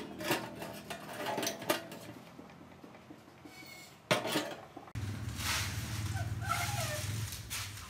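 Light metallic clinks and taps of thin steel wire hangers against a steel-mesh flower pot as they are hooked on, with a sharper click just after four seconds. About five seconds in the sound changes to a steady background with a low hum and a few short chirps.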